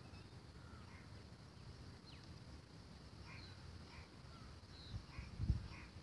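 Faint calls of distant birds: scattered short chirps, one falling note about two seconds in, over a steady hiss. A brief low thump about five and a half seconds in is the loudest sound.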